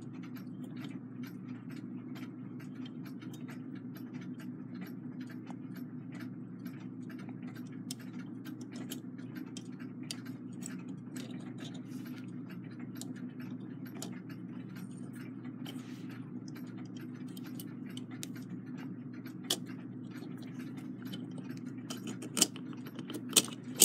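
Faint small metallic clicks and taps of brass clock-movement parts being handled as the front plate is fitted over the wheel arbors, with a few sharper clinks near the end, over a steady low hum.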